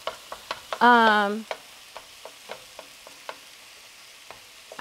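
Meat sizzling in a frying pan, with scattered light clicks of a utensil stirring it. About a second in, a person's voice sounds one short, wavering note.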